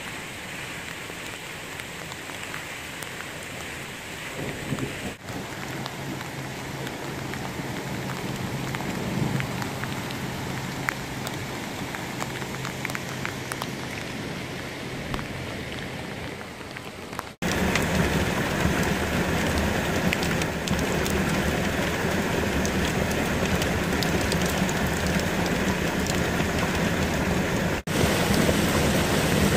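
Steady rain falling with running water, heard across several short clips. It becomes louder and denser about two-thirds of the way in.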